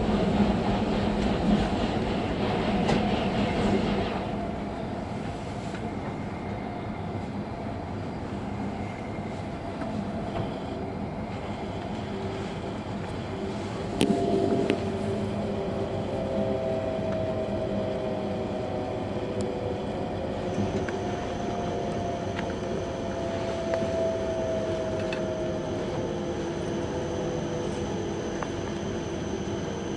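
E5 series Shinkansen heard from inside a passenger car: steady running noise, louder for the first few seconds and with a short loud rush about 14 seconds in. From about halfway, a whine falls slowly in pitch as the train slows for its stop at Oyama.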